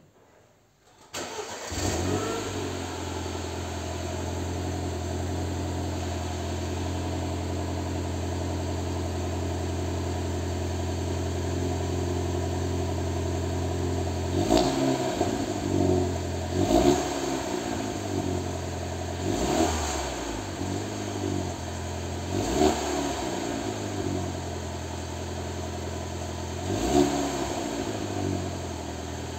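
BMW 116i's N13 1.6-litre turbocharged four-cylinder, with its exhaust resonator deleted, cold-started: it catches about a second in and settles into a steady idle. In the second half the throttle is blipped about six times in short revs. It is heard in an underground car park.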